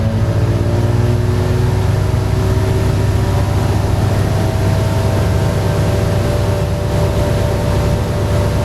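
Bathroom exhaust fan running: a steady low motor hum with airy hiss, its faint whine rising slightly in pitch over the first few seconds as it comes up to speed, then holding steady.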